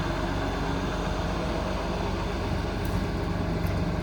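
Cummins 8.3 ISC six-cylinder diesel running steadily at idle, driving the truck's hydraulics while the crane is worked. A couple of faint ticks come about three seconds in.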